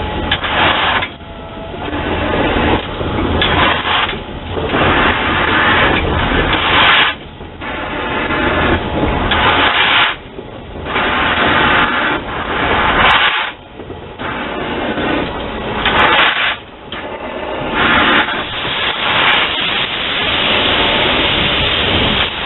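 0-8-0 tank steam locomotive working slowly, its exhaust beats coming as loud steam chuffs every one and a half to three seconds. Near the end the chuffs run into a steady loud hiss as steam blows out low beside the locomotive.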